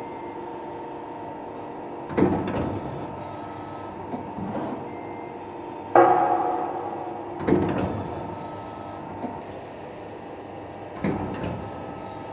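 Press brake machinery humming steadily, with four loud metallic clanks that ring off, the loudest about six seconds in.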